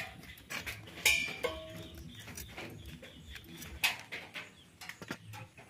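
Light clicks and rustles of a garlic bulb being peeled with a hand blade, with a short animal call about a second in.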